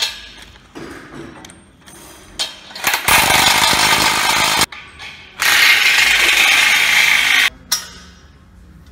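Cordless impact driver running bolts into a steel sawmill endframe in two bursts, the first about a second and a half long and the second about two seconds. Light clinks and knocks of metal parts being handled come before.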